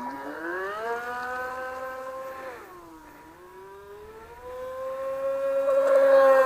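Electric motor of an FSR ECO class RC model boat whining as the throttle is opened: the pitch climbs and holds, drops away as the throttle is eased about two and a half seconds in, then climbs again to its loudest near the end.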